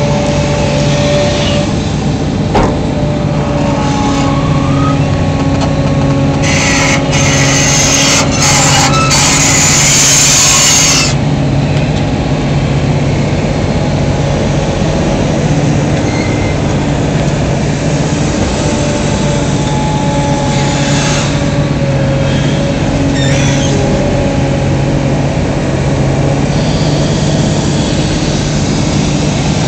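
Komatsu PC340LC hydraulic excavator's diesel engine running steadily under load while digging, with whining tones that rise and fall as the arm and bucket move. A loud hiss lasts several seconds about a quarter of the way through.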